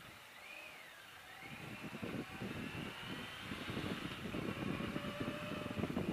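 Yamaha FZR 600 inline-four engine pulling away and accelerating, its pitch rising, with wind buffeting the microphone growing louder as speed builds.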